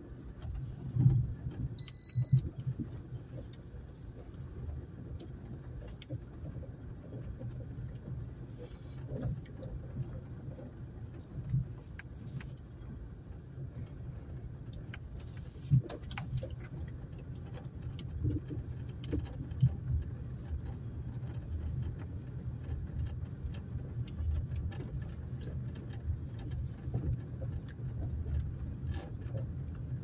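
Car driving on a rough dirt road, heard from inside: a steady low rumble of engine and tyres, with scattered rattles and knocks as it goes over bumps. A short high beep sounds about two seconds in.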